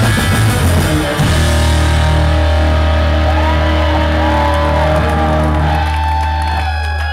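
Live post-hardcore band playing loud distorted guitars and drums. About a second in the band stops on a held chord that rings on with thin gliding whistles over it, then fades near the end: the song is ending.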